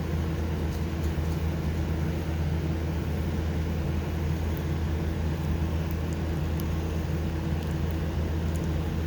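A steady low motor hum with several even tones, unchanging throughout.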